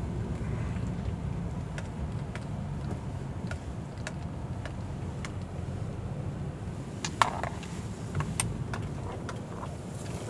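A car driving slowly, heard from inside the cabin: a steady low rumble of engine and tyres, with scattered light clicks and a sharper cluster of clicks about seven and eight seconds in.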